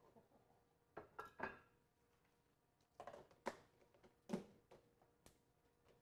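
A knife scraping and clinking on a ceramic plate and the plates being set down, then a plastic lid pressed onto a plastic food tub, heard as a few short clatters about a second in and again from about three seconds in.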